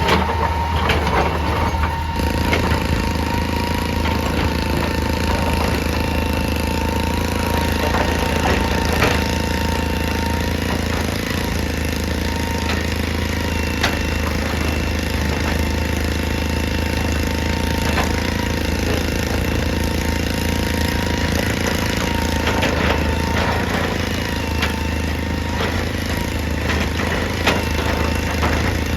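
Excavator's diesel engine running steadily, with a steady whine over it and scattered sharp knocks.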